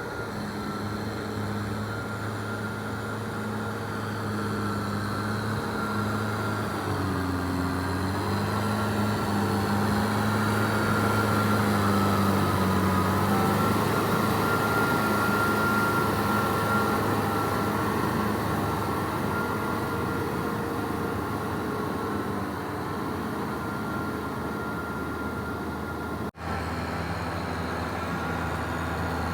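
Kubota M6040SU tractor's four-cylinder diesel engine running steadily as it pulls a plough, with a thin steady whine above the engine note. The engine pitch sags briefly about a quarter of the way in, and the sound cuts out for an instant near the end.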